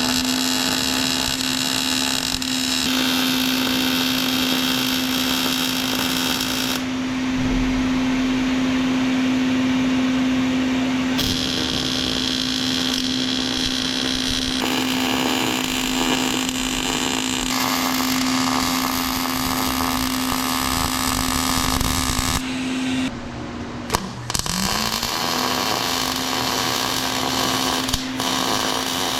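An electric power tool's motor spinning up and running at a steady pitch under a hissing rasp. It stops about 23 seconds in and spins up again about a second later.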